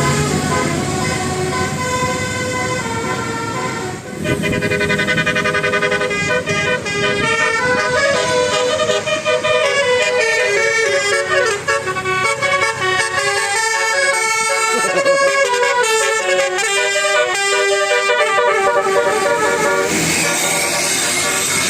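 Bus 'basuri' musical air horn with roof-mounted trumpets playing a melody, starting about four seconds in, its notes changing in quick steps.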